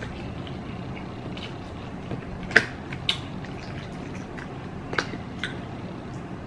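Wet chewing of noodles, with about four sharp clicks of chopsticks against plastic food trays and a paper noodle cup, the loudest a little over two and a half seconds in.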